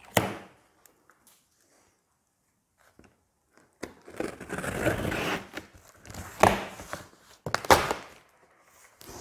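A short snap as a plastic packing strap is cut, then a utility knife rasping as it slits the packing tape along the top of a cardboard box, followed by sharp cardboard cracks as the box flaps are pulled open.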